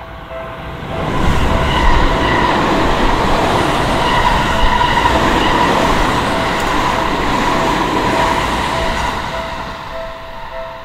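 Japanese railway level crossing warning bell ringing in a steady repeating two-tone ding while a Seibu Railway electric commuter train passes close by. The train's wheel and track noise swells about a second in, is the loudest sound for most of the stretch and fades near the end, with the crossing bell still going.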